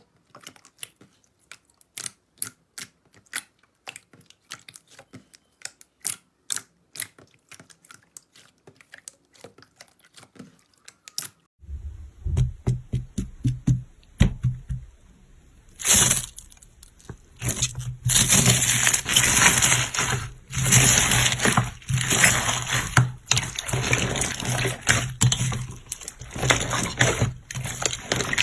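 Slime being handled close to the microphone: scattered sharp clicks and pops for about the first eleven seconds. Then, after a sudden change, it turns to denser, louder squishing and crackling over a low hum.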